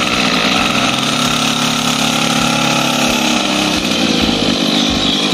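Small 49cc two-stroke mini dirt bike engine running steadily as the bike pulls away, its tone thinning after about four seconds.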